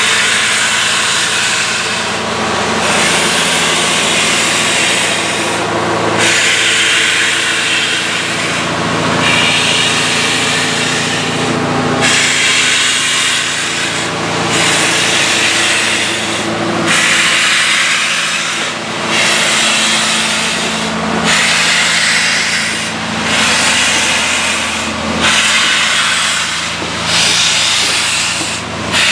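Union Pacific 844, a 4-8-4 steam locomotive, pulling away slowly. Its steam hisses in long rhythmic bursts about every two to three seconds, coming a little closer together as it gathers speed, over a steady low hum.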